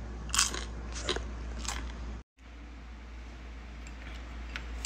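Close-up crunching of a bite into a crispy fried snack being chewed: three sharp crunches about two-thirds of a second apart in the first two seconds, then the sound cuts out briefly and only faint chewing remains.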